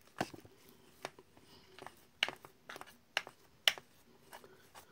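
Fried mackerel tuna (tongkol) flesh being torn and shredded by hand on a plate: irregular small clicks and crackles, about a dozen, over a faint steady hum.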